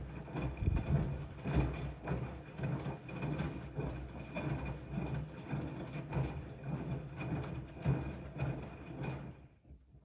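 Siemens iQ 300 front-loading washing machine in its wash cycle: the drum turns, tumbling wet laundry and sudsy water with uneven thuds and sloshing over a steady motor whine. It stops about nine and a half seconds in.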